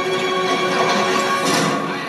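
Film soundtrack music with long held notes, mixed over a dense background of scene noise.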